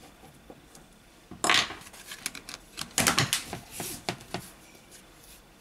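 Back cover of an LG K8 (2017) phone being pressed onto the body, its edge clips snapping into place: a quick run of sharp clicks and scrapes lasting about three seconds, starting a little over a second in.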